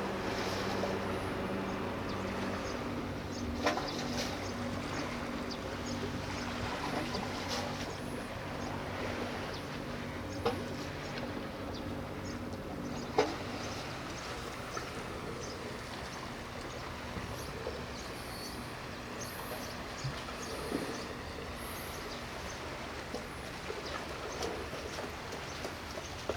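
Low, steady drone of a ship's diesel engine, easing slightly over time, with a few sharp knocks at intervals.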